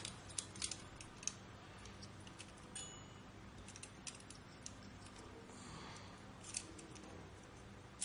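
Faint scattered light clicks and ticks from handling a stock Intel CPU cooler as its tightly wound fan cable is unwound. A few sharper clicks come in the first second and one about six and a half seconds in.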